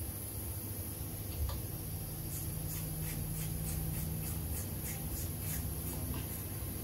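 Light metallic clicks and scratches as an oil pump pickup tube is worked by hand into the oil pump housing: a quick run of about four clicks a second starting some two seconds in and lasting about three seconds, over a steady low hum.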